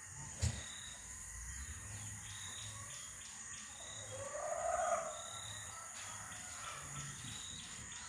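Steady high insect buzzing with short bird chirps about once a second. A click about half a second in, and a louder single call, rising then falling in pitch, about four and a half seconds in.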